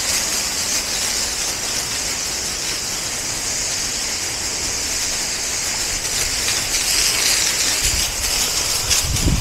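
A hose spray nozzle shooting a jet of water onto a concrete walkway: a steady hissing spatter as the concrete is rinsed down.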